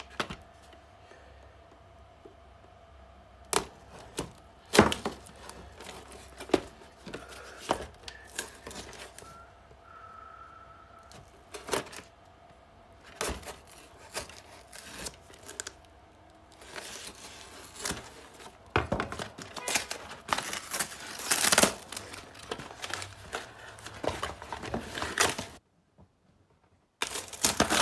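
A large fixed-blade knife cutting the packing tape on a cardboard box, with scattered sharp knocks and scrapes, then a longer stretch of scraping and rustling as the cardboard flaps are pulled and torn open.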